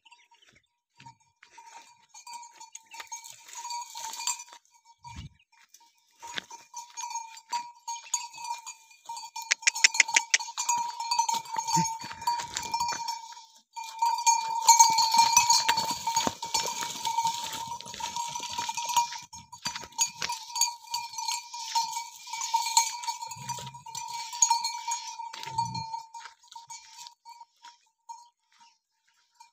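A livestock bell clanking over and over at an uneven pace, in spells that swell and die away, with a few brief low thumps in between.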